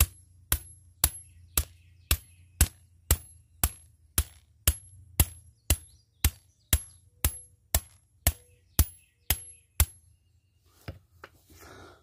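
Hammer blows on the top of a metal threaded rod, driving it into the ground: steady strikes about two a second, each with a short, high metallic ring, stopping about ten seconds in, followed by a few light knocks.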